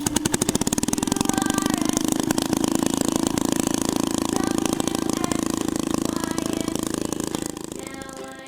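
Bulldozer engine sound running with a rapid, even pulse, fading out near the end.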